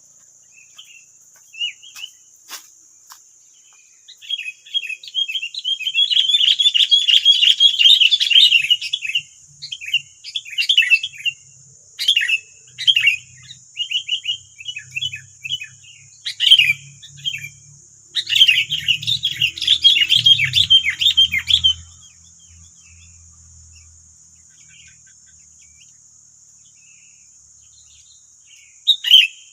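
Sooty-headed bulbuls (kutilang) calling in loud, rapid chattering spells, most intense from about 4 to 22 seconds in, with a short burst near the end. A steady, high insect drone runs underneath.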